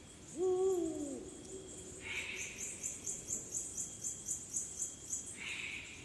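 Eurasian eagle-owl giving a single low hoot of about a second, rising then falling in pitch, starting just after the beginning. Crickets and other insects chirp throughout, with a high rhythmic chirping of about four pulses a second after the first two seconds and short buzzing bursts about 2 and 5.5 seconds in.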